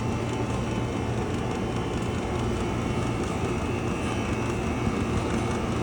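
Taylor Workforce series machines running, their compressors giving a steady low hum over an even mechanical whir.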